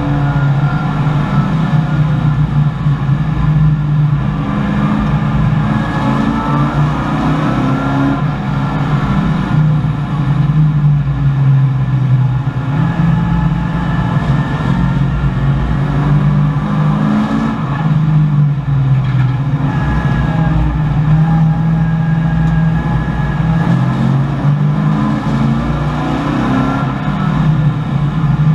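1984 Chevrolet Camaro race car's V8 engine heard from inside the cockpit at racing speed, its pitch climbing and dropping again and again as it is revved out, shifted and lifted for corners.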